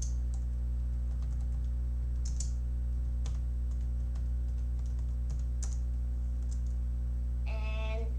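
Computer keyboard keys typed in scattered short strokes over a steady low electrical hum.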